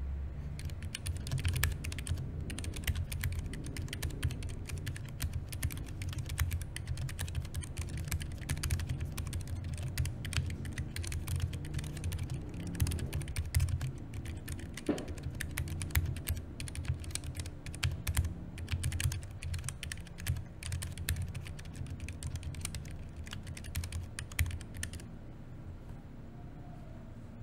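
Typing on a Keychron K3 V2 low-profile mechanical keyboard: a fast, continuous run of key clicks and clacks that stops a couple of seconds before the end.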